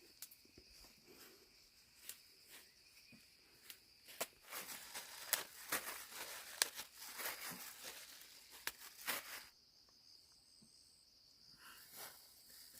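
Insects shrilling steadily in a high, even tone, with irregular rustling and crackling from about four to nine and a half seconds in.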